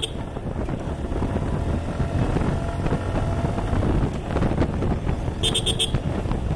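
Suzuki Gixxer 155 single-cylinder engine running steadily under way, with road noise. Twice, right at the start and about five and a half seconds in, a short rapid high-pitched trill of about half a second cuts through.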